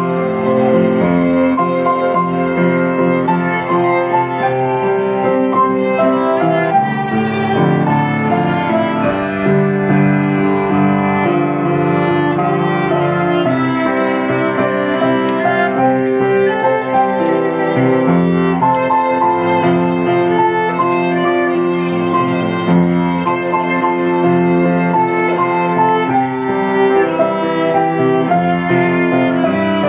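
Background music led by violin over piano, playing steadily.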